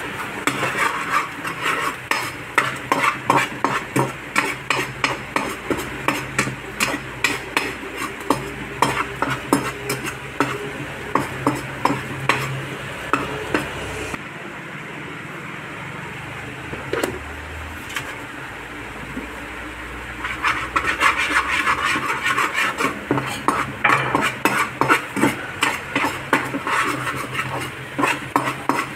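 Steel spoon stirring and scraping chopped garlic and green chillies frying in oil in a metal pan: quick rhythmic clinks against the pan over a sizzle. About halfway through it goes quieter for several seconds, then the clinking stirring starts again.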